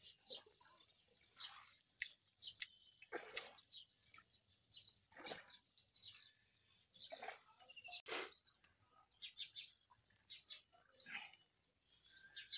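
Faint, sparse bird chirps, short and scattered, with soft water splashes around a slowly gliding boat every second or two; no engine.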